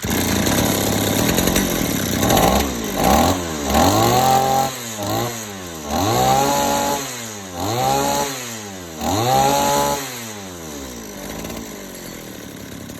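Small two-stroke engine running, revved up and down several times in quick succession, then dropping back to a steady idle near the end.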